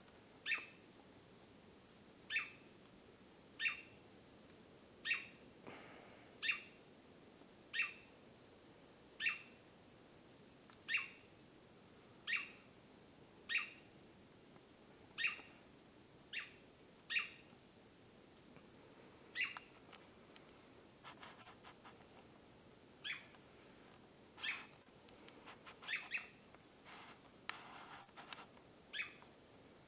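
Swallow-tailed manakin calling: a short, sharp note repeated about every second and a half, some twenty times, over a steady high-pitched hum.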